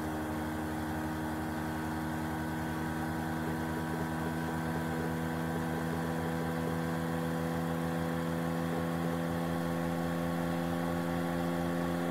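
A steady low mechanical hum, an unseen motor or fan running, with even pulsing low down and no change in pitch.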